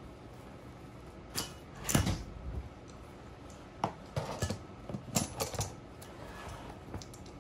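Metal-on-metal clinks and clatter of a valve spring compressor and small parts against a Suzuki Hayabusa cylinder head as it is stripped of its valves. The loudest clatter comes about two seconds in, with a second run of sharp clicks between about four and five and a half seconds and a last click near the end.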